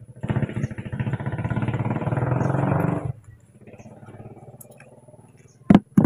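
A small engine running close by, loud for about three seconds and then dropping off suddenly to a faint run. A sharp click comes near the end.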